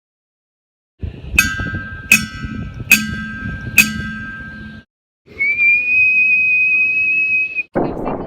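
Four sharp strikes, a little under a second apart, each leaving a steady ringing tone of a struck glass-like or metal object. After a brief gap, a steady high whistle is held for about two and a half seconds. A short loud noisy sound follows near the end.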